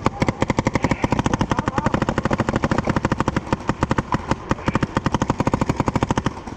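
Paintball marker firing a fast continuous string of shots, about a dozen a second, stopping about six seconds in.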